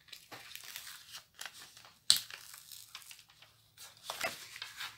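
Clear plastic protective film on a diamond painting canvas crinkling and crackling as it is handled and peeled back from the glued surface, with a sharp crackle about two seconds in.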